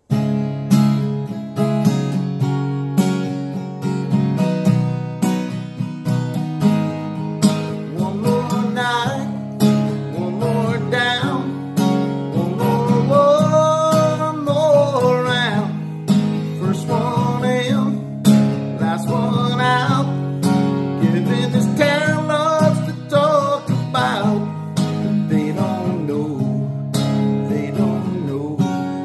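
Instrumental intro of a country song: acoustic guitar strumming steady chords, starting abruptly, with a lead melody of gliding, bending notes above it from about eight seconds in.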